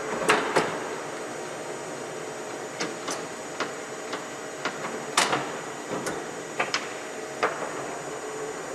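Irregular sharp metallic clicks and clanks, about a dozen, the loudest near the start and about five seconds in, over a steady machine hum in a gear-making workshop.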